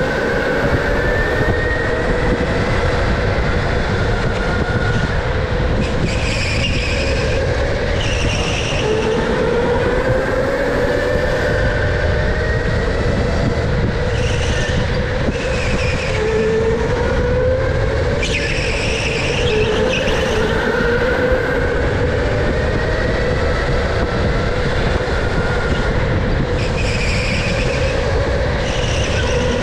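Onboard sound of an electric go-kart at racing speed. The motor's whine rises and falls in pitch as it speeds up and slows for corners, over a steady low rumble from the tyres and chassis. Short bursts of high hiss come every few seconds.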